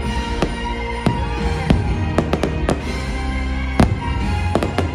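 Aerial fireworks bursting in a rapid, irregular string of bangs, the loudest about four seconds in, over orchestral Christmas carol music from the show's soundtrack.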